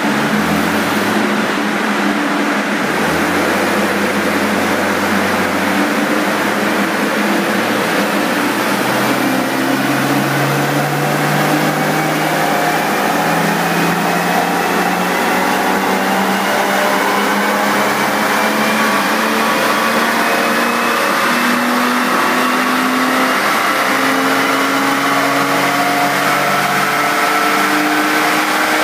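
Porsche Boxster S flat-six engine running under load on a chassis dynamometer, its rear wheel driving the rollers. The pitch rises slowly and steadily as the revs climb.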